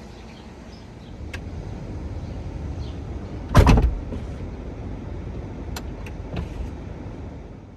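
Tesla passenger door working, with a low steady rumble, a few light clicks and one loud thud about three and a half seconds in. It makes none of the odd noise heard from the repaired driver's door.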